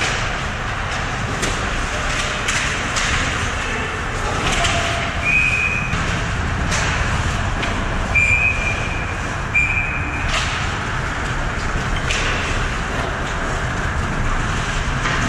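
Ice hockey game in a rink: a steady din with frequent sharp clacks of sticks, puck and boards, and a referee's whistle blown in three short blasts in the middle.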